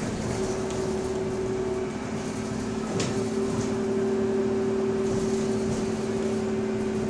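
Bus running on the road, heard from inside the cabin, with a steady two-note whine from the rear-axle differential that fades briefly and comes back about three seconds in, where there is a single sharp click.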